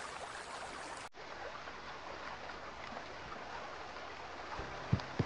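Steady hiss of running or trickling water, with two short low thumps about half a second apart near the end.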